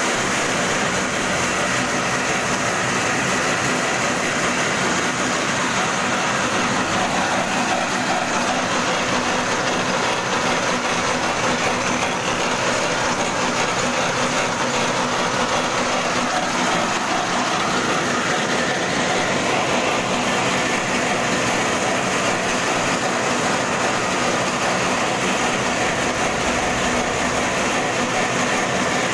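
Corn-cleaning machine running steadily: its small engine drives the sieve while shelled corn kernels rattle and hiss over the wire mesh, a continuous even noise with no pauses.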